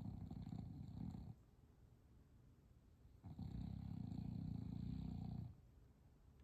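Bulldog snoring in slow, even breaths: one snore fades out about a second in, and a second one of about two seconds starts around three seconds in, with quiet pauses between.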